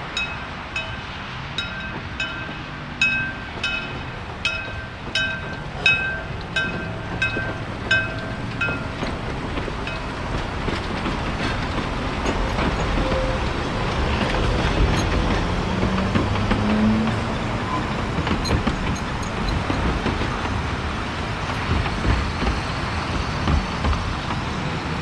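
A bell ringing about twice a second as the 1910 Vulcan 0-4-0 steam locomotive approaches; the ringing stops about nine seconds in. Then the locomotive and its narrow-gauge passenger cars run past with a steady noise of running gear and wheels on rail.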